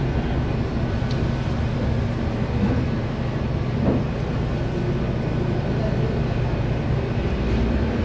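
Steady low background rumble with a faint constant hum.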